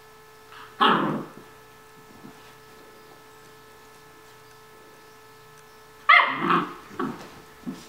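Vizsla puppy barking while playing: one short bark about a second in, then three or four quick barks near the end.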